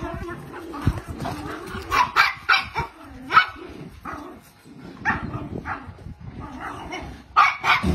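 Dogs barking, short barks coming in a few clusters.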